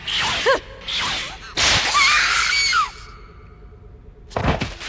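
Anime fight sound effects: swift whooshes with short gasping cries, then about a second and a half in a longer loud rush of noise with a woman's cry. A sharp low thud comes near the end.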